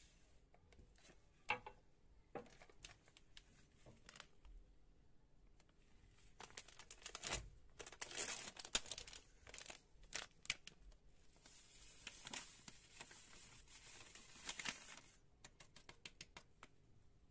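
A plastic packet of custard powder crinkling and being torn open. A few light clicks come first, then a dense spell of crinkling and tearing in the middle, a steadier rustling hiss for a few seconds, and scattered light clicks near the end.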